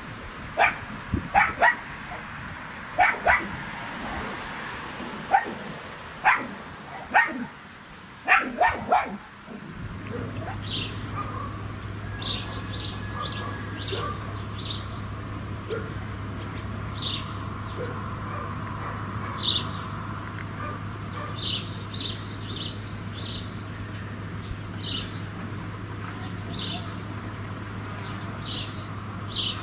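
A dog barks repeatedly, in short loud barks, for the first nine seconds or so. Then small birds chirp, short high chirps coming every second or two, over a steady low hum.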